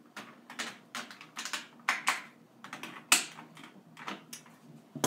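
Scissors snipping through the stiff clear plastic of a toy's blister pack: a run of about a dozen short, sharp, irregularly spaced snips, one louder about three seconds in.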